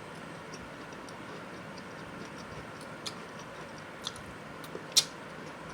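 A person chewing a mouthful of food, with a few short sharp clicks, the loudest about five seconds in, over a steady background hiss.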